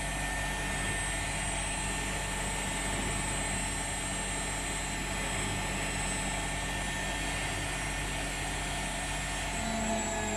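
AEG Lavamat washing machine spinning its drum at maximum speed during its service test mode: a steady hum with a high, even whine.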